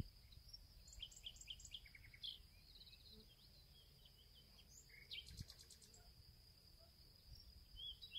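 Faint outdoor ambience: small birds chirping in short runs of quick notes, about a second in and again around five seconds in, over a steady high-pitched tone and a low rumble.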